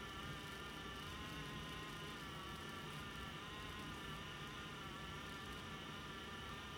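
A steady background hum with a high, buzzing whine that wavers slightly in pitch, like a small motor or appliance running.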